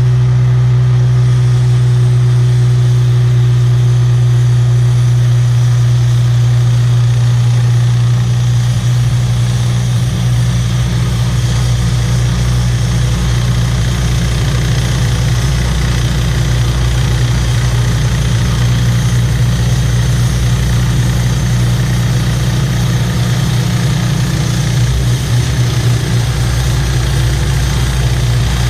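Wood-Mizer LT15START portable band sawmill running steadily under power: a loud, even engine hum with a constant hiss of noise above it.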